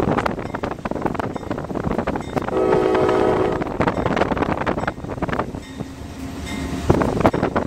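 CSX diesel freight locomotive's air horn sounding a chord, one blast of about a second roughly two and a half seconds in and a fainter, longer one near the end, the crossing signal for the level crossing ahead. Under it runs the steady rumble of the train and the road and wind noise of the car pacing it.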